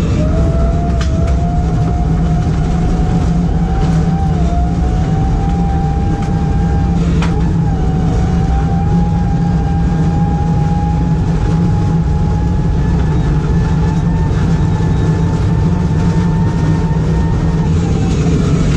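BMW E46 Compact rally car heard from inside its stripped cabin, engine running hard on a gravel stage, with a whine that climbs slowly in pitch and falls away near the end. Scattered sharp clicks of gravel striking the car.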